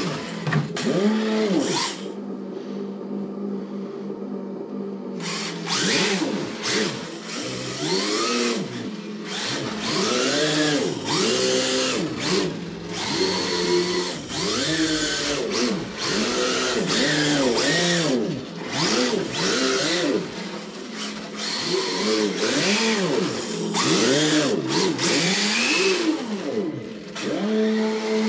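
RC drift car's onboard engine-sound module playing a simulated Nissan RB26 straight-six through its small speaker, revving up and falling back again and again as the throttle is worked. About two seconds in it settles to a steady idle for a few seconds, with the hiss over the revving dropping away, then the revving resumes.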